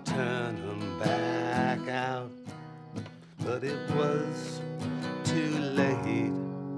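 A man singing a slow bedtime song to a strummed acoustic guitar. His voice stops near the end while the guitar rings on.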